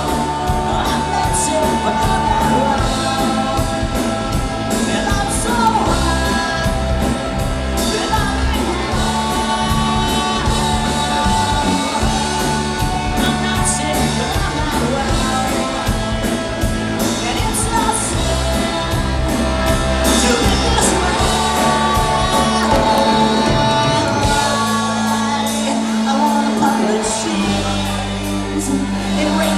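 Live rock band playing an instrumental passage: electric guitars, bass and drums, with long held melody notes on top and no lyrics. About three-quarters of the way through the bass and drums thin out, and a long held low note comes in near the end.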